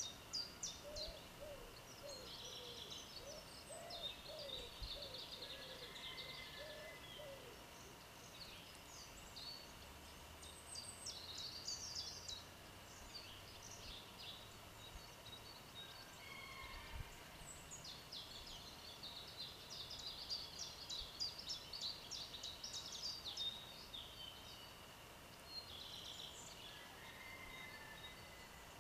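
Several songbirds singing together, fast trills and chirps coming and going in phrases. There is a run of lower repeated calls in the first seven seconds.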